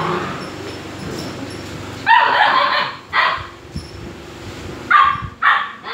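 Young dogs barking and yipping in rough play: a long high yelp about two seconds in, a short bark just after, and two more sharp barks near the end.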